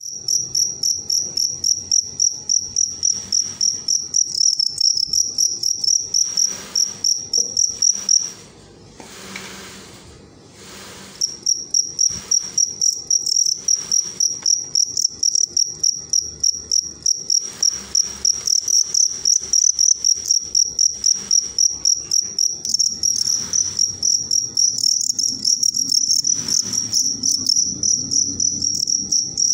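Black field crickets chirping: a loud, high-pitched, rhythmic run of chirps that stops for about three seconds a third of the way in, then resumes.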